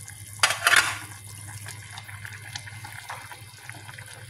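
A pot of chicken wings, vegetables and broth simmering, with faint scattered bubbling ticks over a low steady hum. A loud rush of noise lasting about half a second comes just under a second in.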